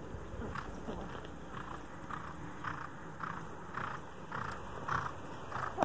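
A horse cantering over sand footing, a soft regular beat of about two strides a second.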